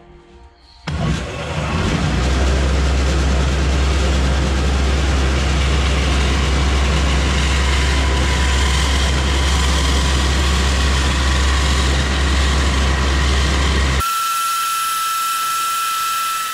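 Large vertical bandsaw cutting through sheet-metal plate: a loud, steady rasp of the blade over a low hum. About fourteen seconds in the low hum drops out, leaving a steady high whine.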